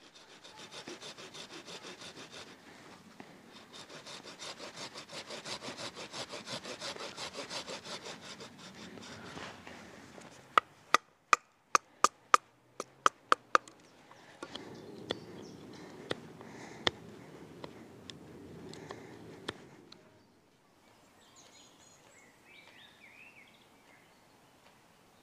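A Silky folding saw cutting through a green hazel branch in quick, even strokes for about nine seconds. Then about ten sharp knocks as a wooden baton strikes a knife through the hazel, followed by a knife scraping and carving the wood. Birds chirp faintly near the end.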